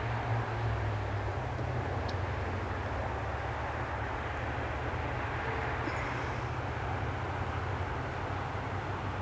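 Steady outdoor background rumble and hiss with no distinct motor tone, with a few faint, high chirps about seven seconds in.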